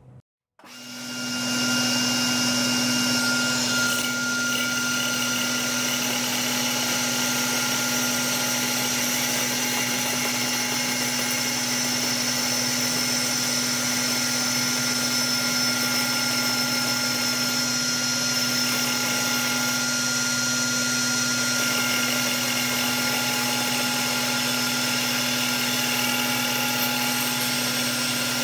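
A power tool's electric motor starts about a second in, winds up to speed and runs steadily with a constant whine.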